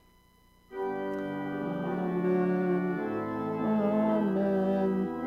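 Organ coming in about a second in with sustained, held chords, moving slowly from one chord to the next.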